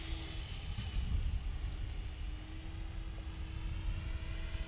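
Class-500 radio-controlled helicopter (T-Rex 500) flying at a distance, heard as a faint steady high-pitched whine from its motor and rotors, with wind rumbling on the microphone.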